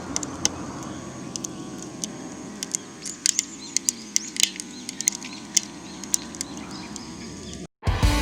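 Wood fire crackling: irregular sharp pops and snaps over a low hiss, cutting off suddenly near the end.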